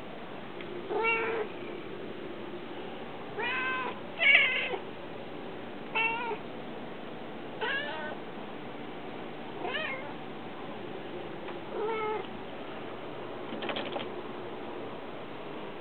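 Tabby house cat meowing over and over, about eight separate meows roughly every two seconds, the loudest about four seconds in.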